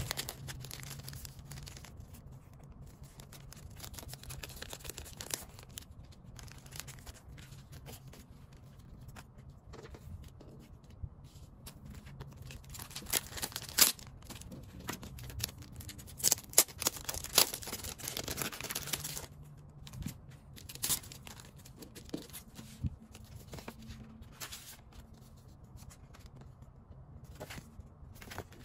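Plastic packaging crinkling and tearing as hands unwrap a digipack album, with scattered taps and rustles of paper and card. A louder run of sharp crackles comes about halfway through.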